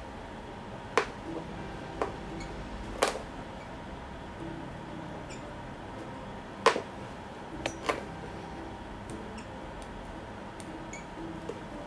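End-cutting nippers biting through and pulling out the outsole stitching along the welt of a Goodyear-welted leather-soled shoe: about half a dozen sharp clicks, spaced irregularly.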